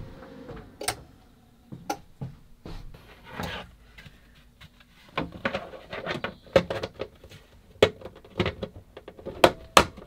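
Scattered knocks and clicks as the cover of a Go Power transfer switch is handled and fitted into place, coming thicker from about five seconds in.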